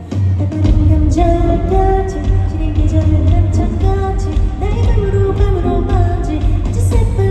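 Live K-pop performance: a female lead vocalist sings over a full band with heavy bass and a steady drum beat. The bass and beat come in strongly right at the start.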